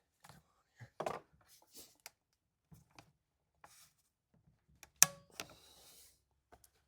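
Scattered light clicks and knocks of hand tools and plastic and metal parts being handled while working on a chainsaw, with one sharp click that rings briefly about five seconds in.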